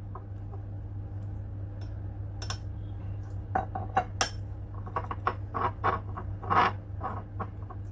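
A steel spoon clinking against a drinking glass full of ice cubes in scattered light clinks as a drink is poured slowly over the back of the spoon, over a steady low hum.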